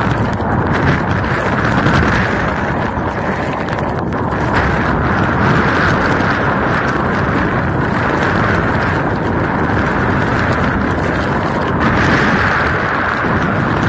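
Storm wind and rain buffeting the microphone of a vehicle-mounted camera moving along a highway: a loud, steady rush of noise.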